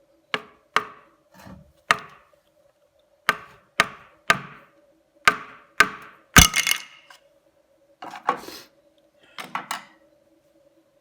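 A series of about a dozen sharp, irregular knocks and taps of tools or parts being struck or set down on a workbench. The loudest comes about six and a half seconds in, followed by a short clatter. A faint steady hum runs underneath.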